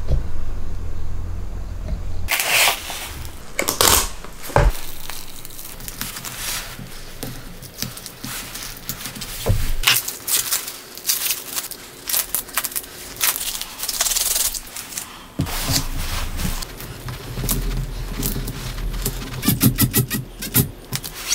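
Scattered clicks, small metallic clinks, scrapes and crinkles of tools and materials being handled by hand on a workbench. A low steady hum fills the first couple of seconds.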